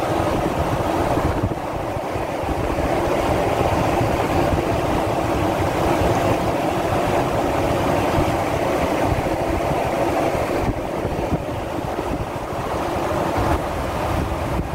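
Mercedes-Benz Arocs 3353 S 6x4 tractor unit at highway speed on a wet road: a steady mix of tyre hiss on wet asphalt, road noise and engine drone, with wind buffeting the microphone.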